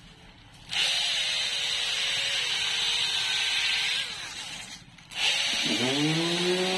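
Wooden dowel spun by a power drill while sandpaper is held around it by hand: a steady rasping hiss over the drill's whine, starting about a second in. The sound drops away around four seconds in, then the motor spins back up with a rising whine and the sanding hiss returns.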